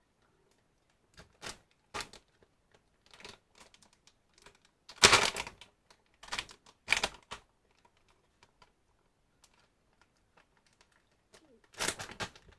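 Plastic food package crinkling and rustling in irregular bursts as it is pulled at and bitten to tear it open, with the loudest burst about five seconds in.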